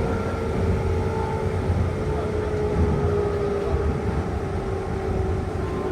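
Shizuoka Railway 1000 series electric train running on the line: a steady low rumble with a hum that slowly falls in pitch.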